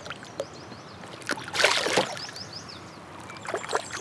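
Water splashing as a small northern pike is released over the side of a kayak, with one loud splash about a second and a half in as the fish kicks away, then a few smaller splashes and knocks near the end.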